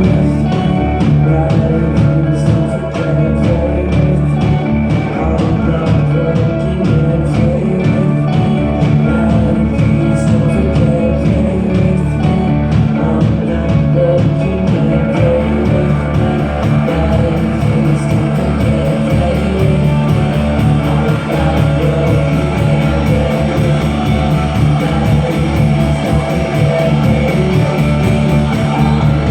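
Live rock band playing an instrumental stretch with electric guitar, bass and drums to a steady beat. A fast, even cymbal tick comes in about halfway through.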